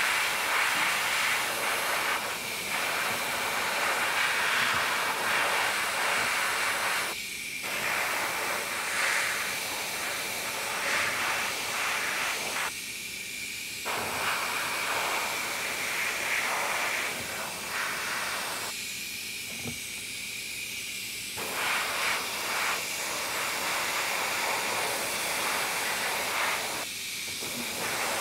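Airbrush spraying paint in a steady hiss, broken by a few short pauses where the trigger is let off; the longest, a couple of seconds, comes just before the two-thirds mark.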